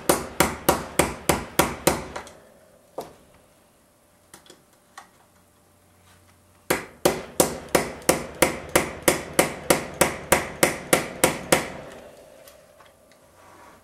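Folded steel multi-tool tapping the end of a small screwdriver set on a tiny pin, driving the pin out of a Remington Model 740 Woodsmaster rifle's action. Two runs of sharp metallic taps at about four a second: the first stops about two seconds in, and the second goes from about seven to twelve seconds in, with a few lone knocks between.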